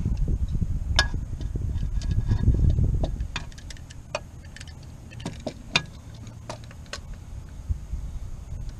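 Hand tools and metal parts clicking and clinking together in scattered, irregular taps, some with a short metallic ring, over a low rumble that fades about three seconds in.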